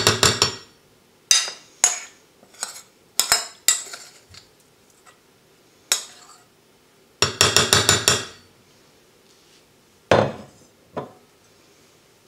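Metal spoon scraping and tapping pasta off a ceramic plate into a stainless-steel food jar, in bursts of rapid clinks, then two duller knocks near the end.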